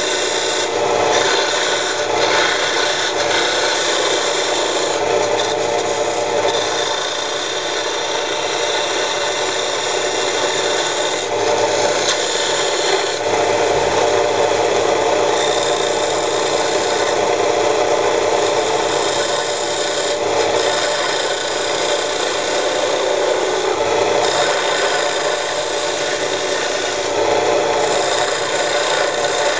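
Belt-driven homemade wood lathe running steadily while a hand-held turning chisel scrapes and cuts the spinning wooden workpiece. The cutting noise breaks off briefly several times, when the tool is lifted from the wood, while the motor keeps running.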